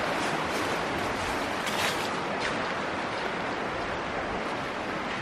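Creek water rushing steadily over rocks, with a few faint short clicks.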